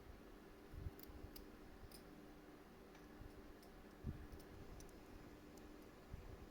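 Faint, irregular clicks of small metal tools handling a Seiko 6309 watch's parts at the bench, with a couple of soft knocks, over a low steady hum.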